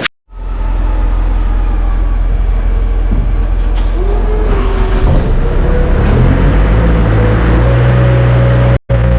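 An engine running steadily under a low hum, with a pitched whine that rises slowly from about four seconds in. The sound drops out abruptly right at the start and again near the end.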